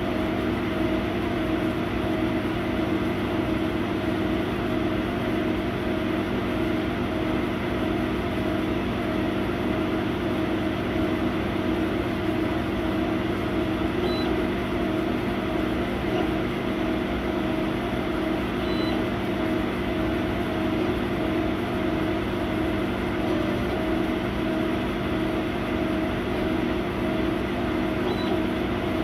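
100W CO2 laser cutter running as it cuts MDF: a steady machine hum and hiss with several held low tones, and a few faint short high chirps as the head moves.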